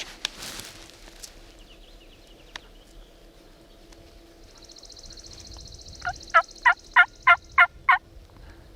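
Turkey yelping: a run of about seven loud, evenly spaced notes over about two seconds near the end. A thin, high trill runs underneath for a few seconds before and during it.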